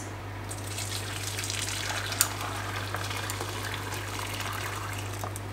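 Hot milk being poured from a saucepan into a bowl: a steady gush of liquid, with a single clink about two seconds in, over a low steady hum.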